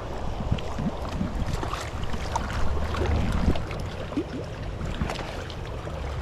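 Fast tailwater river current rushing, with small scattered splashes and wind buffeting the microphone.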